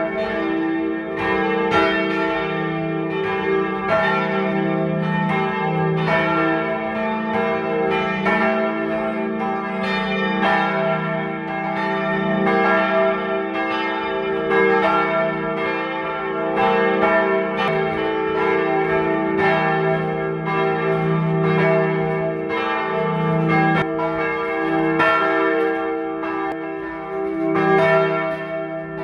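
Church bells pealing: a steady run of strokes, about two or three a second, over the sustained hum of the bells' ringing tones.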